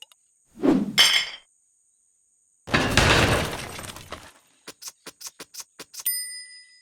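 Cartoon sound effects of glass breaking: a short whoosh, then a loud crash of shattering glass, then small shards clinking down in quick ticks. A bright ding rings briefly near the end.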